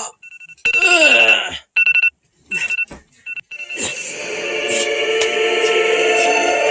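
Phone alarm ringing in short repeated beeps on two steady pitches, broken up by brief bits of voice. About four seconds in, choral music comes in, swells and holds.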